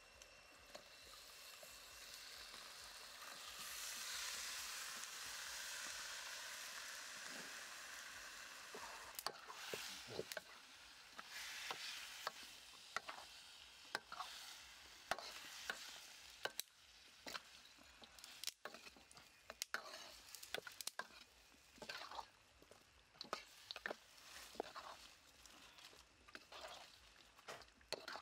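Crocodile meat pieces hitting hot oil in a wok, a sizzle that builds for a few seconds and then eases. From about a third of the way in, a metal spatula scrapes and clacks against the wok in quick irregular strokes as the meat is stir-fried, with the frying going on underneath.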